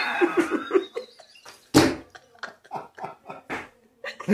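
A man laughing heartily: a quick run of "ha-ha" pulses in the first second, then breathless snorts and gasps of laughter, with one sharp burst about two seconds in.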